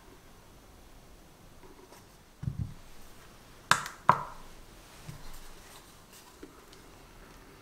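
Kitchen handling sounds from a ceramic bowl on a digital kitchen scale. A soft low thump is followed by two sharp clicks with a brief ring, less than half a second apart, then a few faint ticks.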